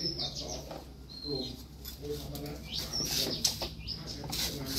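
Birds chirping in short whistled notes, several sweeping sharply upward in pitch, over faint low voices.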